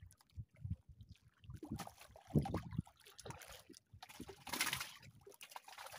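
Water sloshing and splashing against a small wooden fishing boat, in two short bursts, with scattered low knocks of handling on board.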